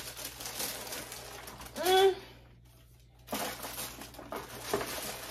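Tissue paper crinkling and rustling as a pair of sneakers is unwrapped in a cardboard shoebox, in two stretches with a short pause between. A brief wordless voice sound comes about two seconds in and is the loudest moment.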